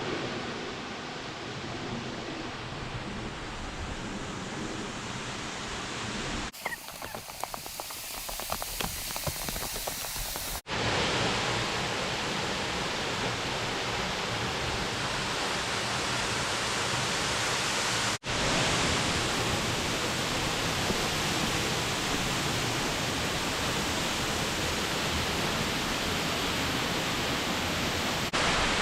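Waterfall rushing steadily, in several spliced stretches that change level abruptly at each cut. About a quarter of the way in, one stretch is thinner, with a run of soft ticks over the water noise.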